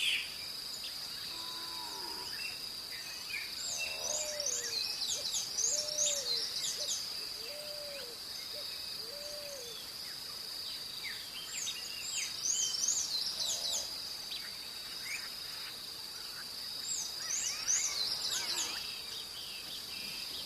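Dawn birdsong: songbirds singing groups of quick, high, falling chirps again and again, over a steady high insect drone. In the first half a run of about five lower, arched calls sounds at roughly one a second.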